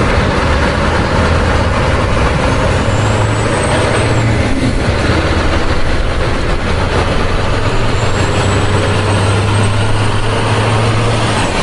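Heavy truck engine running steadily with a deep hum, without revving.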